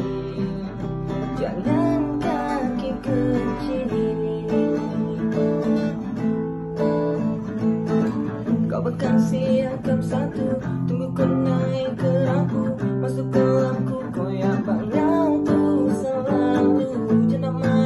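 Background song with strummed acoustic guitar and a steady beat.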